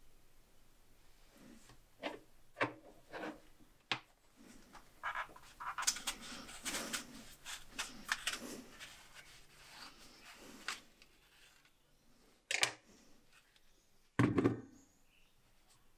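A knife cutting an apple on a cutting board: scattered taps and scraping, busiest in the middle, then two heavier thuds near the end, the second the loudest.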